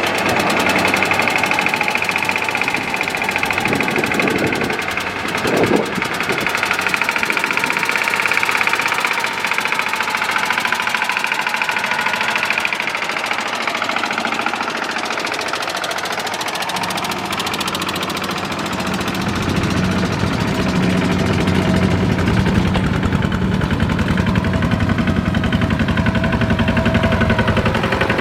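Engine of a heavy farm machine running steadily with a rapid knocking chug. Its low end gets heavier from about 19 seconds in.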